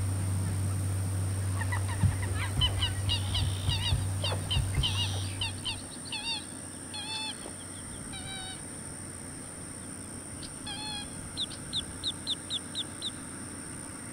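American alligator hatchlings chirping to their mother: short, high, yelping calls in scattered runs, ending in a quick series of rising chirps near the end.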